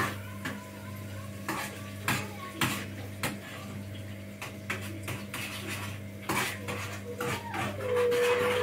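A metal utensil clinking and scraping against a frying pan on a gas stove as food is stirred, in scattered sharp clicks over a steady low hum. Near the end a brief tone glides down and then holds.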